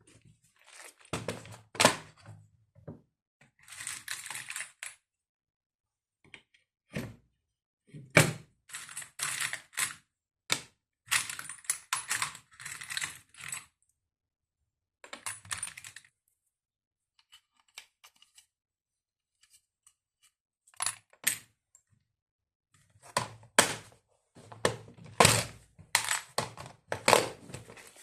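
Hand work with tools and wooden parts: irregular knocks, clicks and clatter, with several second-long stretches of noisy scraping, in bunches with short pauses between.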